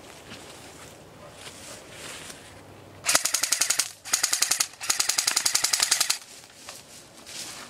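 M4-style airsoft electric rifle firing three full-auto bursts about three seconds in. Each burst is a rapid, even string of sharp shots with a short pause between bursts, and the last burst is the longest.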